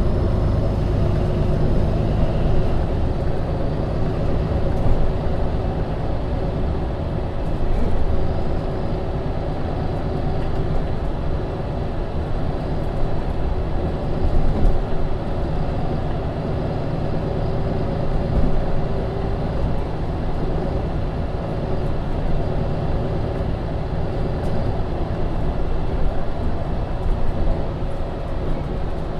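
A MAN Lion's City NL 283 city bus (2015, Euro 6) under way, its diesel engine running steadily together with rolling and road noise.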